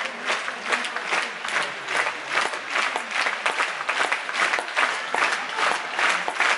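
Theatre audience applauding at a curtain call, the clapping falling into a steady rhythm in unison at about two to three claps a second.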